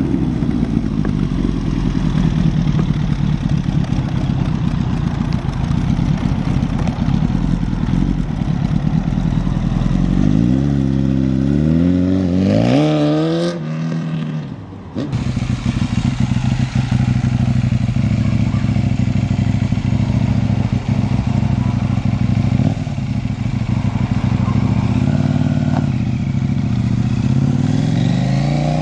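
Motorcycle engines running as bikes ride past one after another. The engine note rises as one accelerates about ten seconds in, the sound dips briefly about halfway through, then a steady engine note carries on.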